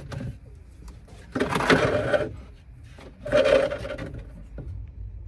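Cordless power drill/driver running in two bursts of about a second each, backing screws out of a wooden battery box.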